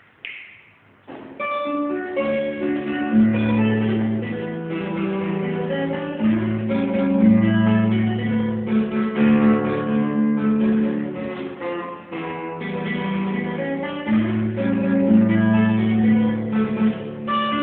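Acoustic guitar playing a fingerpicked piece, held bass notes moving between two pitches under a busy melody, starting about a second in.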